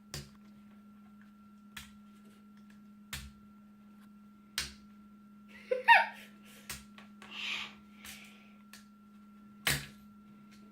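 Sharp plastic clicks and knocks, one every second or two, as the top of a fidget cube is pried off. A short vocal sound about six seconds in.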